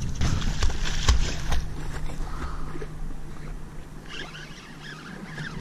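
Water splashing from a Labrador retriever swimming hard beside a small boat, with a few sharp knocks in the first second and a half and a steady low hum underneath. The sound fades toward the end.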